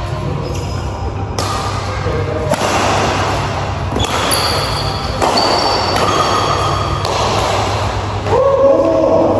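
A badminton rally: rackets striking the shuttlecock in sharp hits about once every second and a bit, echoing in a large hall. The loudest moment is a short pitched squeak near the end.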